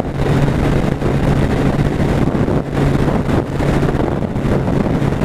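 Suzuki Hayabusa's inline-four engine running steadily at highway cruising speed, under heavy wind noise on the microphone.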